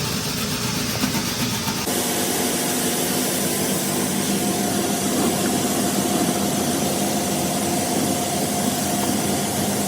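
Duct-cleaning equipment running with a steady, engine-like hum and steady tones. The sound changes abruptly about two seconds in, then holds steady.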